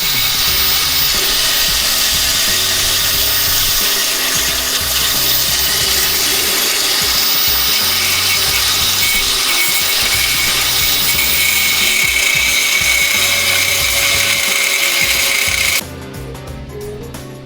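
Angle grinder's cutting disc grinding through the steel sleeve of a seized lower control arm bushing, a loud continuous grinding that cuts off suddenly shortly before the end.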